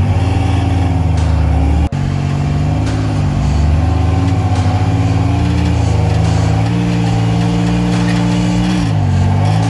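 Rock crawler buggy's engine running under load as it climbs a rock crack, its revs stepping up and down with the throttle and dipping then rising again near the end. The sound drops out for an instant about two seconds in.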